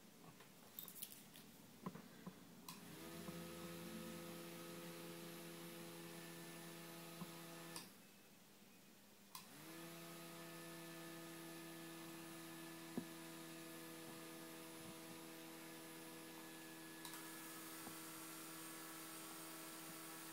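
Small battery-powered toy fan motors running with a steady whirring hum as their switch pads are pressed. The hum cuts out for a moment and then spins back up with a rising pitch. A few clicks of the switches come in the first seconds.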